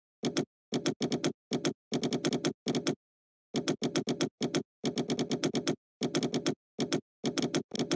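Computer keyboard being typed on: quick runs of key clicks broken by short pauses, with dead silence between the runs.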